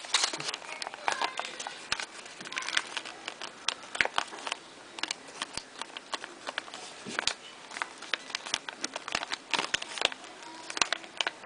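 Sheet of origami paper being folded and creased by hand: a run of irregular crackles and rustles as the paper is pressed and reworked.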